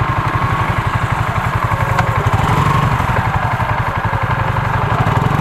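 Motorcycle engine idling steadily, heard up close, an even, rapid pulsing.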